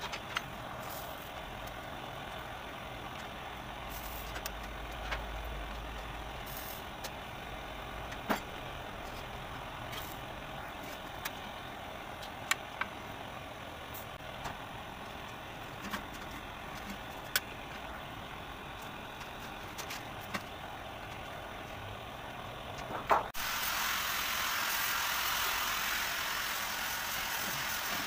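Short sharp taps of hand tools on brass sheet, one every second or two at uneven spacing, over a steady background hiss. About 23 seconds in, a louder steady hiss begins and carries on.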